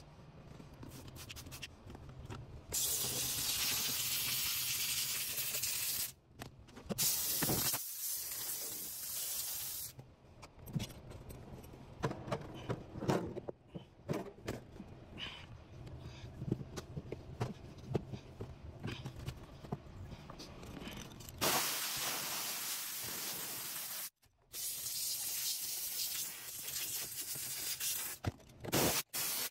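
Handheld steam cleaner hissing as it jets steam, in four bursts of a few seconds each, with quieter rubbing and knocking in the long gap between them.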